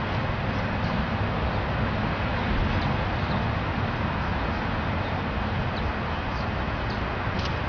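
Steady outdoor background noise with a low rumble, and faint short bird chirps now and then.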